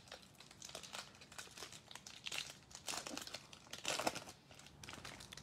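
Crinkly wrapper of a Topps baseball card pack being torn open and crumpled by hand: a faint run of irregular crackles.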